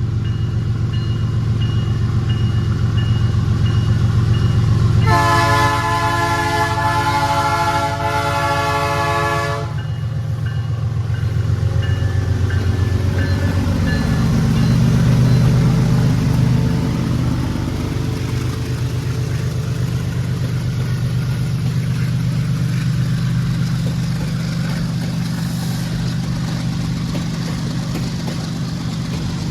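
GE ES43BBi diesel-electric locomotive's engine running hard under load as the train departs. One long horn blast of about four and a half seconds begins about five seconds in, sounded for a level crossing. The engine grows louder again about halfway through.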